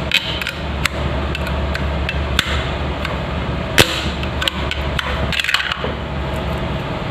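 Scattered sharp taps and knocks of hand tools on a tight plumbing fitting on a toilet's supply line, a few single strikes with one loudest near the middle and a quick cluster a little later, over a steady low hum.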